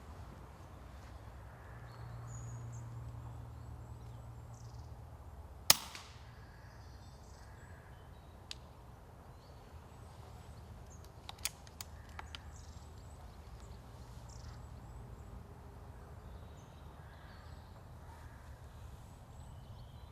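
A single air rifle shot, a sharp crack about six seconds in, followed some seconds later by a few faint clicks. Faint bird calls over a steady low rumble.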